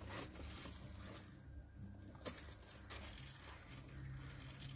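Quiet workbench room tone with a low steady hum and a few light clicks and rustles of multimeter test leads being handled.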